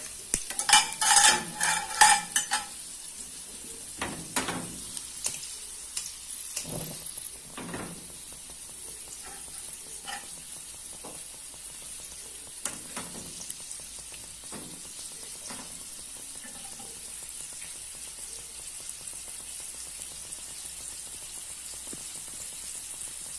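Pastel frying in oil in a metal frying pan, a steady sizzle. Metal utensils clink and tap against the pan, a quick cluster of ringing clinks in the first few seconds, then scattered single taps.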